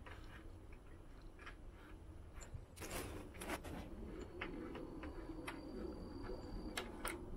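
Faint scattered metallic clicks of a hex key working the pivot bolt of a Trek Domane's front IsoSpeed decoupler at the head tube, a few ticks from about three seconds in.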